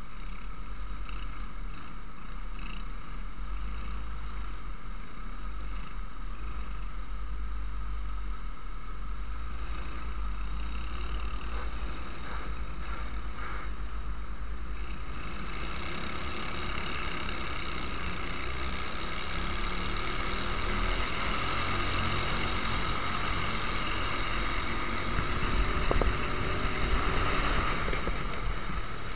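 Onboard sound of a Prokart racing kart's twin four-stroke engines running in a pack: a steady drone for the first half, then louder from about halfway with the pitch rising as the karts accelerate, loudest near the end.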